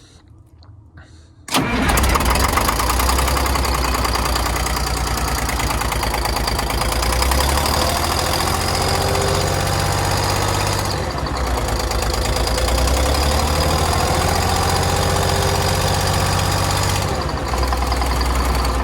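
Cold Detroit Diesel 6V92 two-stroke V6 diesel fires about a second and a half in and runs loud and steady. It has a leaking exhaust manifold gasket and some cylinders on one bank not firing.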